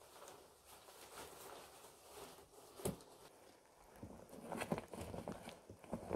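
Faint rustling and knocking of bike-packing gear being handled: a fabric bag being packed and then strapped onto the bicycle. There is one sharp click about three seconds in, and busier rustling near the end.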